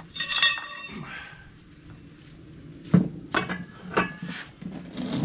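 Metal clinks and knocks as a locking plate is cinched down onto a steel tractor wheel rim on a manual tire changer's centre post. A ringing clink comes near the start, then a sharp knock about three seconds in and a few lighter knocks.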